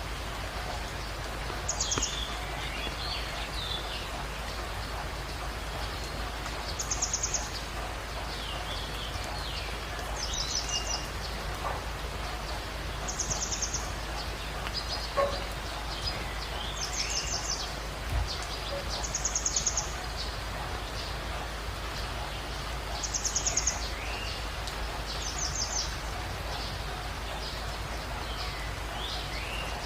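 Birdsong: one small bird repeats a short, very high, fast trill eight times, every two to four seconds, while other birds chirp more softly in between, over a steady background hiss.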